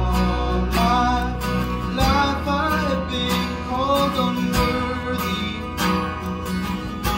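Two acoustic guitars strumming in a steady rhythm, with a man singing a melody over them, most clearly through the middle.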